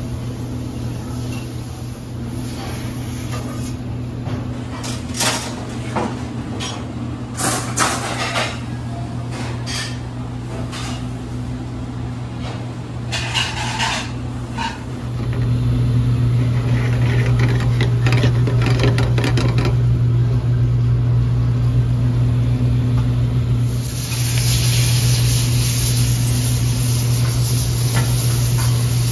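Kitchen work: a steady low hum of running equipment, with scattered clatter of pans, dishes and utensils in the first half. The hum gets louder about halfway through, and a steady hiss joins it near the end.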